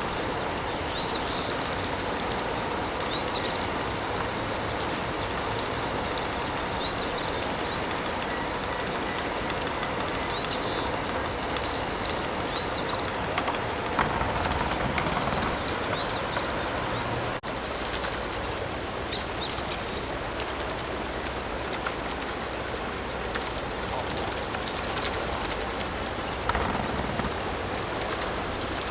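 Small birds chirping again and again over a steady rushing background noise; the background changes abruptly a little over halfway through.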